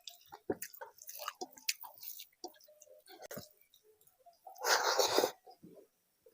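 Close-up eating sounds of a person chewing a meal of rice and curry: a string of short wet mouth clicks and smacks. About four and a half seconds in comes a louder noisy rush lasting under a second.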